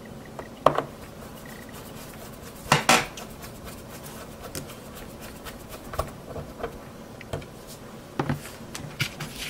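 Scattered light metallic clicks and clinks of a Phillips screwdriver and small screws against a graphics card's circuit board as the screws are put back in, with the loudest clatter about three seconds in.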